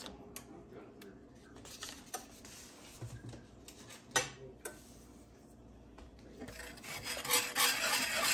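Metal wire whisk stirring chocolate gravy in a cast iron skillet, a scraping, rubbing noise that starts about seven seconds in and grows louder. Before that it is mostly quiet, with a few light knocks and one sharp knock about four seconds in.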